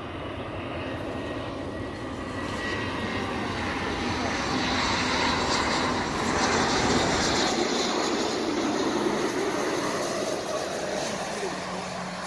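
Bombardier Global Express XRS business jet's twin Rolls-Royce BR710 turbofans on landing approach: a steady jet whine that grows louder as the aircraft descends past, peaks about halfway through, then eases a little.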